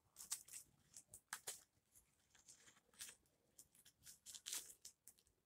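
Faint rustling and scattered light clicks of a plastic baby doll and its clothes being handled, a few louder rustles a little before the end.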